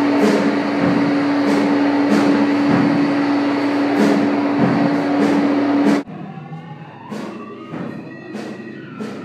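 Experimental electronic noise music: a loud, dense wash of noise over a steady low drone and a regular pulse, which cuts off suddenly about six seconds in. A quieter, sparse passage of clicks and gliding tones follows.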